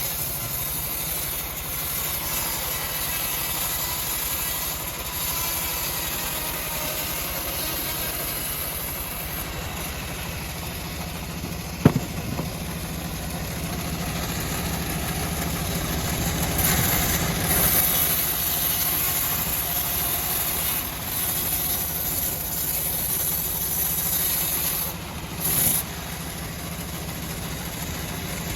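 Engine-driven homemade bandsaw mill running steadily, with a single sharp knock about twelve seconds in.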